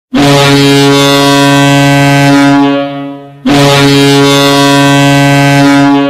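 Ice hockey arena goal horn sounding two long blasts of about three seconds each, a deep steady tone; the first fades out and the second starts right after.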